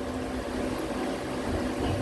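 A motor running with a steady hum and an even hiss.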